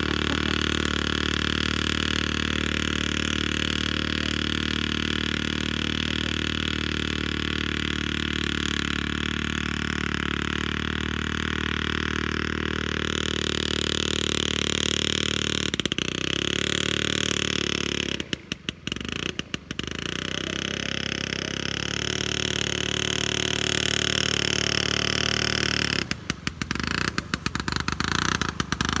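Homemade aerosled's single-cylinder two-stroke IZh Planeta motorcycle engine running steadily while driving its pusher propeller, its pitch shifting a little as the sled moves over the ice.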